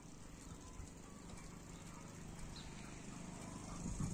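Faint outdoor background: a low, steady rumble with a few soft ticks, and no distinct event.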